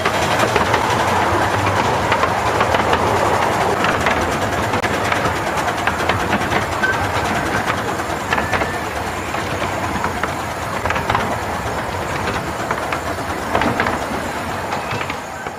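Narrow-gauge steam railway train running along the track, heard from aboard a carriage: a steady rumble and rush of the wheels with occasional clacks over the rail joints, gradually getting quieter towards the end.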